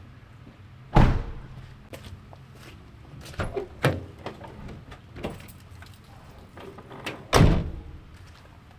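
Vehicle door shut twice, two heavy thuds about six seconds apart, with lighter clicks and knocks between them.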